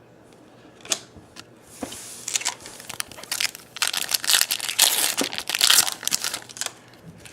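Foil trading-card pack wrapper being torn open and crinkled, a few light clicks first and then a few seconds of dense crackling.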